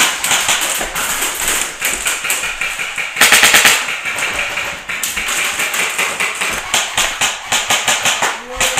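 Airsoft guns firing in rapid strings of sharp clicks and snaps, with a louder burst about three seconds in.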